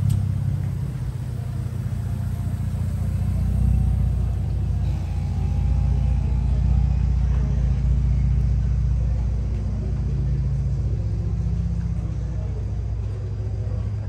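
Steady low mechanical rumble with a deep hum, swelling and easing slightly but never stopping.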